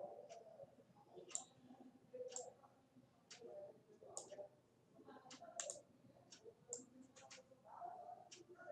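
Computer mouse clicking: about a dozen faint, sharp clicks at uneven intervals, with a soft low rustle between them.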